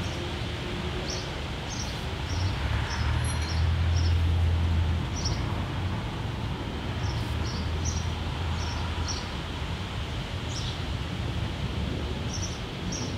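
Steady background hiss over a low hum, with scattered short high-pitched chirps throughout. The hum swells for a couple of seconds about three seconds in.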